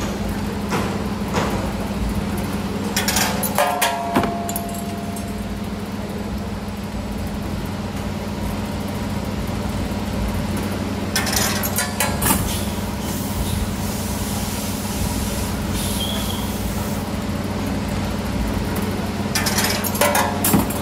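CNC 3D wire-bending machine running through its bending cycles on 7.0 mm rod. A steady machine hum runs underneath three bursts of clattering metal clicks, several seconds apart, as the bending head clamps and bends the rod.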